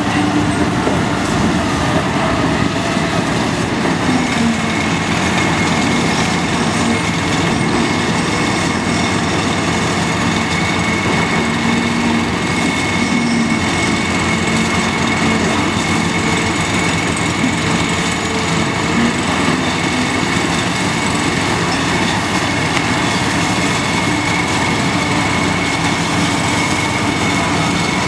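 Caterpillar 992G wheel loader's diesel engine running under load as the loader works and manoeuvres, with a steady high-pitched whine that comes in a few seconds in.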